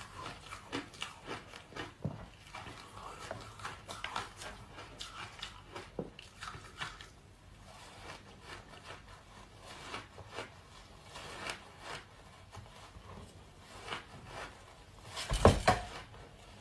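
Close-miked crunching of large ice chunks dusted with matcha powder as they are bitten and chewed, a fast run of crisp cracks and crunches, with one louder, longer crunch near the end.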